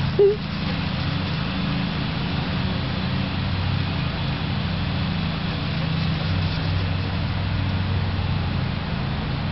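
A steady low mechanical hum, like an engine running, under an even background noise. There is one short rising squeak right at the start.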